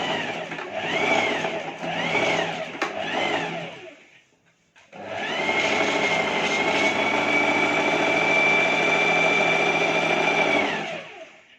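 Electric sewing machine running under the foot pedal. It surges four times in quick succession, then after a short pause runs steadily for about six seconds, speeding up at the start and winding down at the end.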